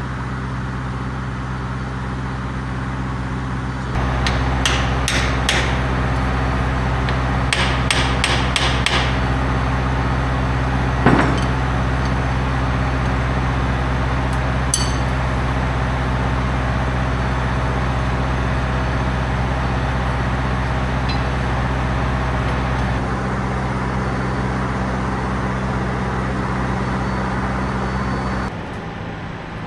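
Workshop tool work on metal: quick runs of sharp taps, then one louder strike a few seconds later. Under it runs a steady low machine drone.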